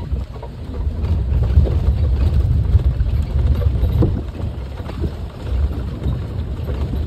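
Wind buffeting a handheld phone's microphone outdoors, an uneven low rumble that rises and falls throughout.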